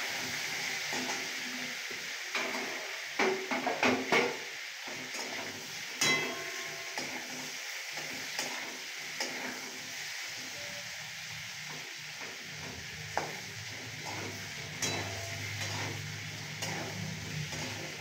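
Boiled potato pieces sizzling in hot oil in a steel kadai while a metal spatula stirs them, scraping and knocking against the pan. There is a quick run of clinks about three to four seconds in and another knock around six seconds. A low hum comes in about two thirds of the way through.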